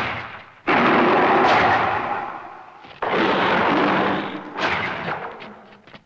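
A series of explosion sound effects: three blasts a couple of seconds apart, each starting suddenly and dying away over a second or so.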